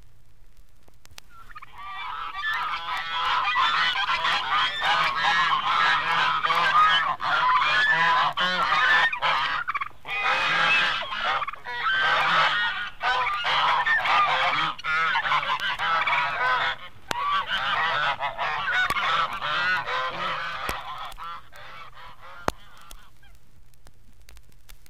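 A flock of geese honking continuously, many birds calling over one another, fading in and fading out as one recorded sound-effects track. Record surface clicks and a low hiss run underneath.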